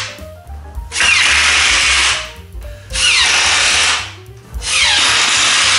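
Power drill driving screws into plywood in repeated runs of about a second each, three full runs and the tail of another, each starting with a short falling whine. Background music plays underneath.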